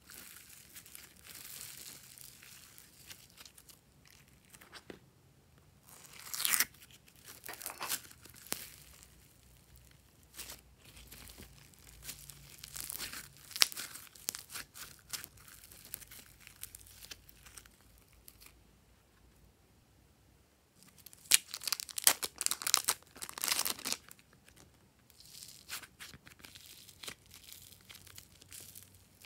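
Hands squeezing, stretching and pulling apart floam, a sticky slime packed with tiny foam beads, making crisp crackles and sticky tearing sounds in irregular bursts. The loudest run of crackling comes about two-thirds of the way in, after a short quiet pause.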